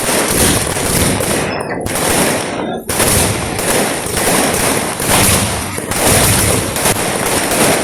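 A rapid, unbroken barrage of firework explosions, dense overlapping bangs and crackling like machine-gun fire, with two brief lulls about two and three seconds in.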